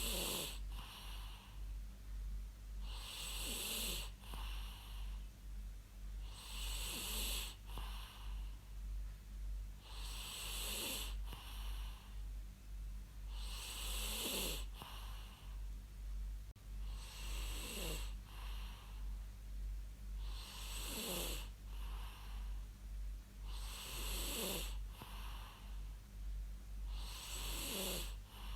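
A person snoring in a steady rhythm, one snore about every three and a half seconds. Each snore has a breathy rasp with a tone that falls in pitch. A constant low hum runs underneath.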